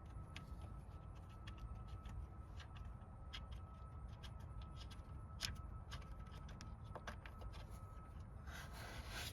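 Faint, irregular light clicks and taps of hand tools working on a car's radiator and condenser bolts, a few tenths of a second apart, over a faint steady hum. A short rustle comes near the end.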